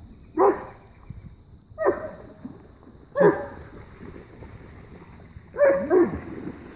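German Shepherd barking: five short barks, each falling in pitch, the last two close together near the end.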